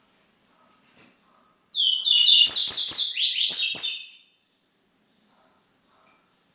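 Double-collared seedeater (coleiro) singing one fast phrase of quick, high, sliding notes about two seconds in, lasting some two and a half seconds; faint short chirps come before and after it.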